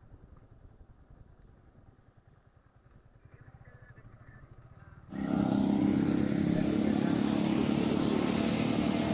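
A faint low rumble, then, about five seconds in, a motorcycle engine running steadily starts abruptly and loud.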